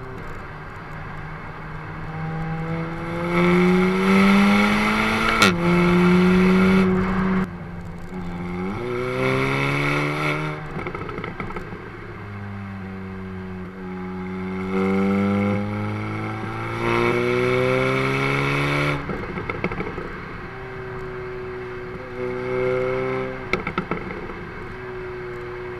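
Exhaust of a 2017 facelift Audi S3 (8V) and its turbocharged 2.0-litre four-cylinder, heard at the rear tips while driving: the revs climb through several pulls and drop away between them. The loudest pull comes about three to seven seconds in, with a sharp crack about five seconds in.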